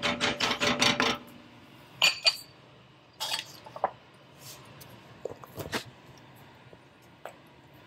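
Metal utensils clinking against cookware and dishes: a quick rattling run of clinks in the first second, then scattered single clinks.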